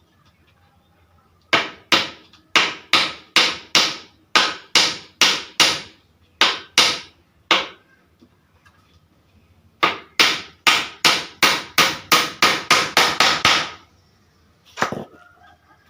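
Hammer striking wood while the frame of a wooden washing-machine stand is put together. First comes a run of steady blows, about two a second; after a pause there is a faster run of blows, then one last strike near the end.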